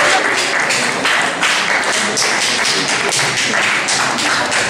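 Audience clapping in a steady rhythm, about three claps a second.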